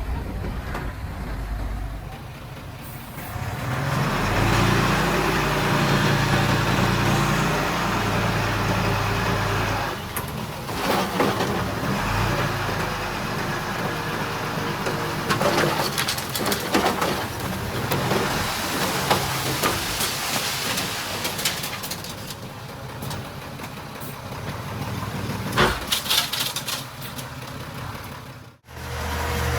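Diesel engines of earthmoving machinery working, with a bulldozer and dump trucks on site. The engines run and rev up about four seconds in, with scattered metallic clanks and squeals, and the sound cuts out briefly near the end.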